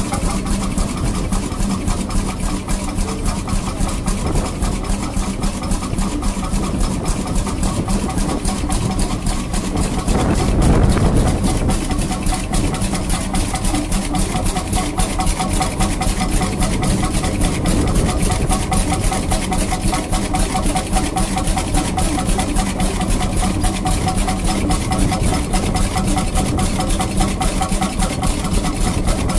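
Vintage stationary engines running with a steady, rapid exhaust beat, with a louder stretch about ten seconds in.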